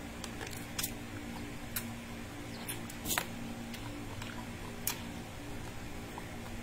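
Close-up eating sounds of a person picking at cooked crab with the fingers: a handful of sharp clicks and smacks from the shell and the mouth, the loudest about three seconds in, over a steady low hum.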